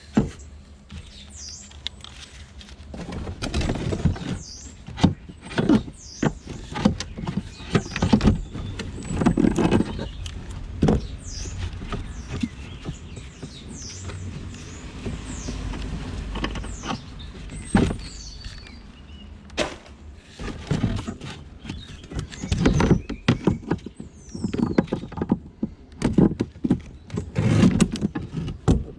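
Irregular knocks and clatter of hard objects being handled and moved, with birds chirping in the background.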